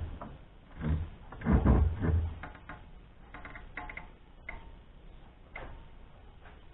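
Handling noise in the workshop: a few heavy thumps, then scattered light clicks and clinks of tools and metal parts being moved.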